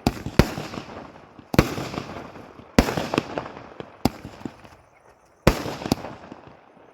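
Thirty-shot multi-colour aerial firework cake firing its shots one after another, a sharp bang roughly every second and a quarter, each followed by fading crackle.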